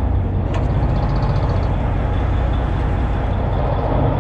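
The boat's Detroit Diesel Series 60 inline-six diesel comes up sharply to a loud, steady drone right at the start as the boat gets underway to the next fishing spot.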